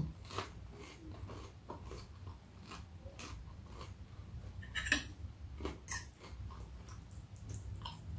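Close-miked chewing of crunchy breaded chicken nuggets: irregular crisp crunches, with two louder bites about five and six seconds in, over a faint steady low hum.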